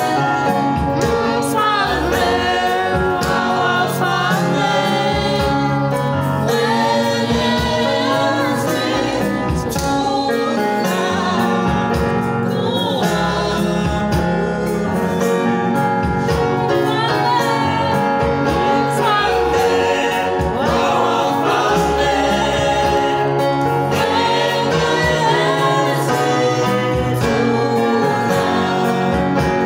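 Gospel worship music with singing, continuous and steady in level.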